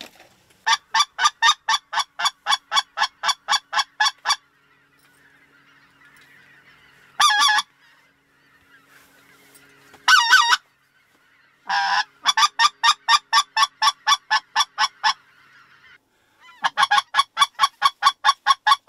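A hand-blown duck call working passing birds: fast runs of evenly spaced, loud notes, about four to five a second, with two longer wavering whistle-like notes between the runs. A distant flock calls faintly in the gaps.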